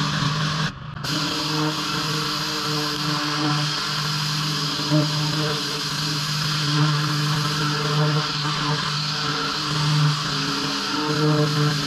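Engine-driven pressure washer running steadily, its engine drone under the loud hiss of high-pressure water spray, with a brief drop about a second in.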